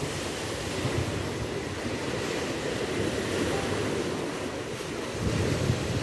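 Small Black Sea waves breaking and washing along the shore, mixed with wind rumbling on the microphone; the sound gets louder about five seconds in.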